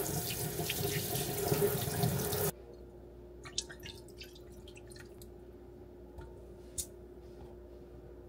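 Kitchen tap running into a stainless steel sink, splashing over hands and raw chicken pieces being rinsed. It stops abruptly about two and a half seconds in, leaving a faint steady hum and a few small clicks.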